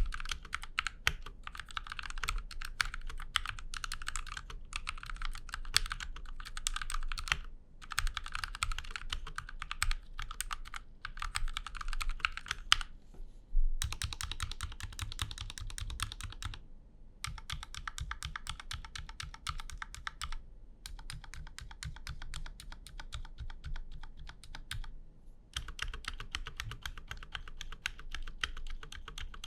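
Typing test on a Rexus Daxa M61 60% mechanical keyboard in a CNC aluminium case with EVA foam inside: fast runs of keystrokes, broken by short pauses every few seconds. The foam gives a damped sound.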